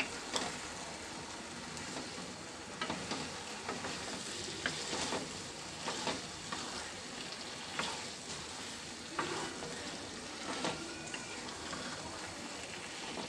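Wooden spatula stirring and scraping a thick taro-flower curry in a frying pan over a steady sizzle, with irregular scrapes and knocks every second or two as the mash is turned and cooked down.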